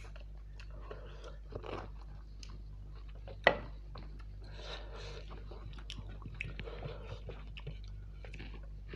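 Close-up sounds of a person eating: wet chewing and biting with scattered small clicks. One sharp, much louder knock comes about three and a half seconds in.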